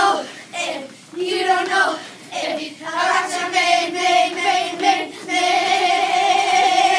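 Group of children singing together, the notes growing longer and ending on a long held note over the last couple of seconds.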